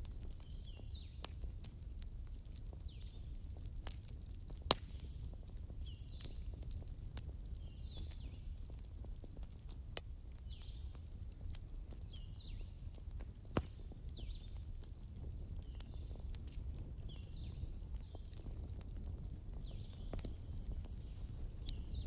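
Wood embers burning, crackling with scattered sharp pops over a steady low rumble. Three pops stand out. A short, high animal call repeats about once a second throughout.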